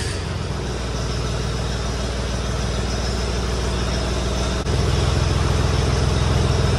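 Zetor 3011 tractor's diesel engine idling steadily. About four and a half seconds in there is a click, and the engine is louder after it.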